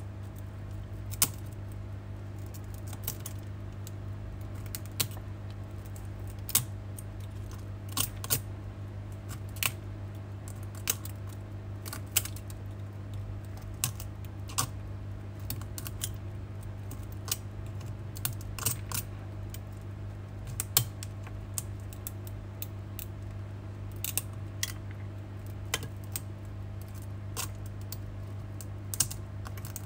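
Handheld electric tool held on a cracked iPhone X back glass, humming steadily while sharp clicks and ticks come every second or two as the back glass breaks away.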